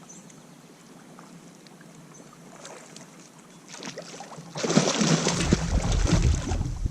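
Quiet water lapping and a few faint ticks, then, about four and a half seconds in, sudden loud splashing with knocks and a deep rumble as the hooked fish thrashes at the kayak's side.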